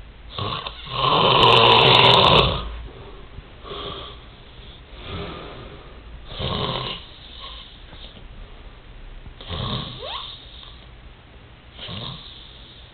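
A sleeper snoring in uneven breaths one to three seconds apart. The first snore, about half a second in, is the longest and loudest; the rest are shorter and softer.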